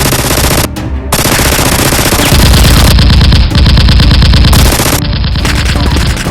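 Rapid automatic gunfire, machine-gun style, in loud bursts that start and stop abruptly, with a brief gap about a second in.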